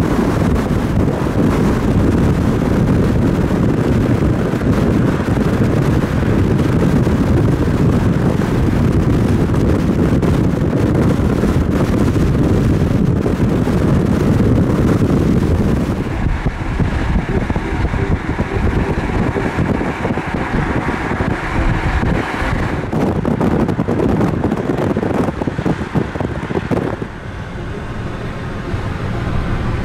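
Car driving on the highway: steady road and wind noise that shifts in tone about halfway through.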